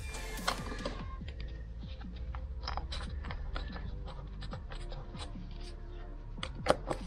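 Screwdriver driving the small screws that hold a MAF sensor into its plastic intake housing: a rapid run of small clicks and scrapes of metal on plastic, with one sharper click near the end.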